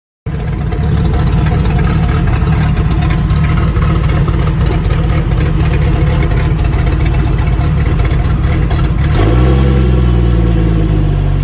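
Jeep Cherokee engine idling roughly and low once warm, misfiring and on the point of stalling. About nine seconds in the engine note shifts in pitch.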